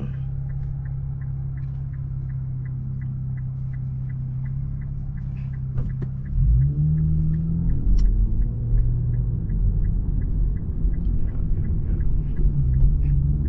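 Infiniti Q50S's twin-turbo V6 running steadily at low revs, then pulling away about six seconds in, its note growing louder and climbing in pitch. A light, even ticking, about three a second, runs underneath throughout.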